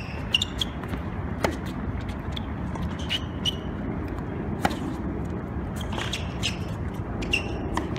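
Tennis ball bounces and racket strikes on an outdoor hard court: sharp pops, some with a short ping, as a player readies and hits a serve and a few shots follow. They sit over a steady low background hum.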